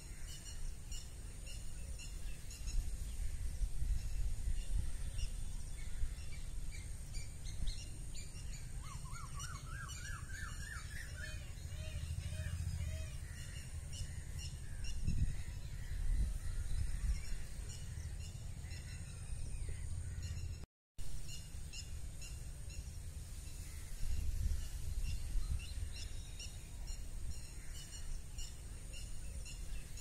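Several wild songbirds chirping and calling with short, repeated high notes, over a steady low rumble of wind on the microphone. About ten seconds in, one bird gives a quick run of notes that rises in pitch.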